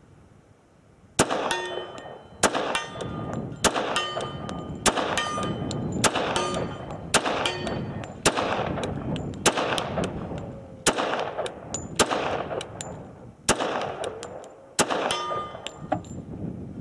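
Heckler & Koch Mark 23 .45 ACP pistol firing a full magazine in slow, steady fire: about a dozen shots roughly a second apart, each followed by a brief ringing.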